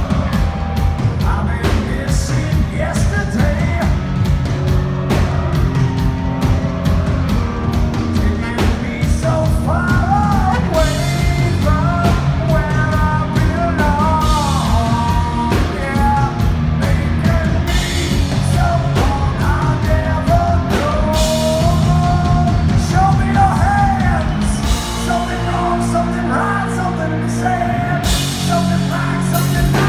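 Hard rock band playing live, with distorted electric guitars, bass and a drum kit, and a male voice singing over it from about a third of the way through to past the middle.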